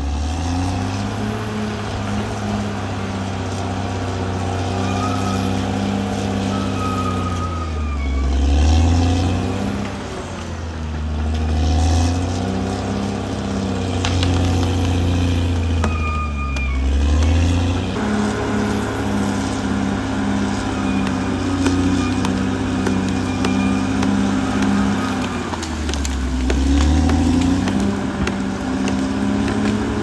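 Caterpillar D6R XL bulldozer's diesel engine running steadily while working. Its engine speed sags and recovers three times, with a few faint higher squeaks over it.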